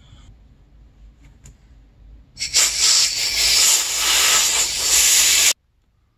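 Handheld butane torch hissing steadily with its flame lit for about three seconds, then shut off suddenly.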